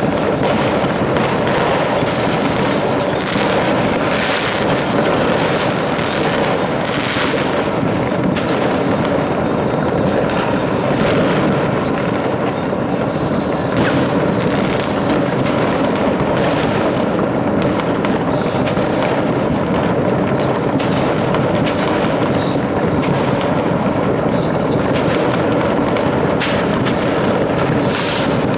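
New Year's Eve fireworks: many rockets and firecrackers going off at once, near and distant bangs overlapping into one continuous din with no pauses.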